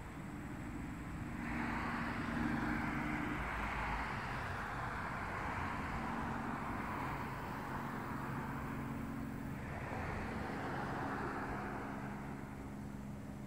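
A vehicle passing on a nearby road, its tyre noise swelling in about a second and a half in and fading again, with a second, shorter pass just after it.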